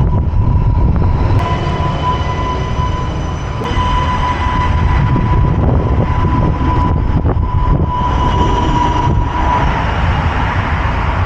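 Train at a station, a steady low rumble with a high steady whine over it that fades out about nine seconds in.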